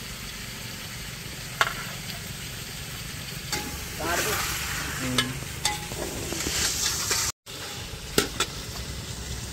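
Chicken masala with green chillies frying in oil in a pot and being stirred with a metal spoon. It sizzles, louder with scraping from about the middle on, with several sharp clanks of the spoon against the pot over a steady low rumble.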